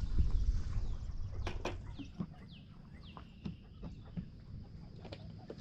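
Chickens calling, with a few short falling peeps in the middle, over a low rumble and scattered knocks in the first second or two.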